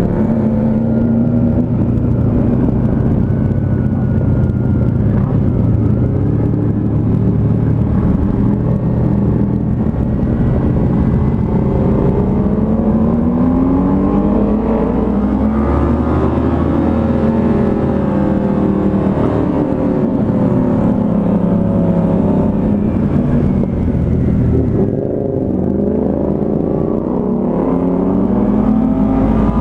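Yamaha MT-03 motorcycle engine running under way, revving up and easing off repeatedly as it changes speed. Its pitch dips for a moment about 25 seconds in.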